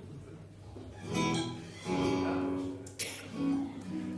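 Background music: an acoustic guitar playing plucked notes, coming in about a second in.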